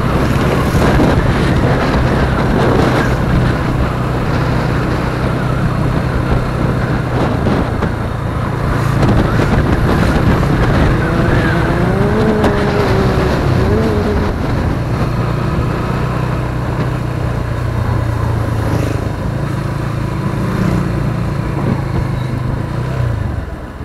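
Motorcycle engine running steadily on the move, with wind and road rush over it; the engine note dips briefly about eight seconds in and again near the end.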